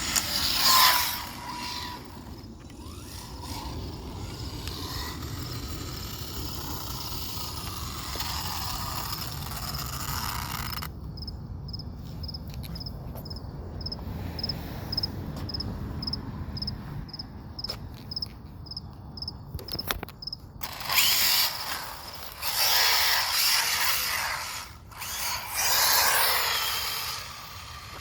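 Brushless electric RC car driving in bursts, its motor and drivetrain whining as it accelerates and passes, loudest near the start and again near the end. In the quieter middle stretch, a high chirp repeats steadily about two or three times a second.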